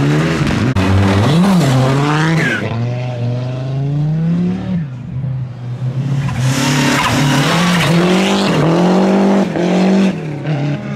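Rally car engines at full throttle through a stage, the revs climbing and falling in steps with gear changes. About six seconds in comes a loud hiss of tyres sliding on loose gravel.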